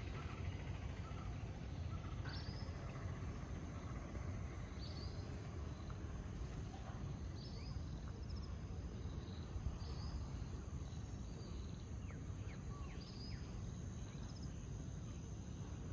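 Evening outdoor ambience: a steady high insect trill of crickets, with short bird chirps every couple of seconds over a low steady rumble.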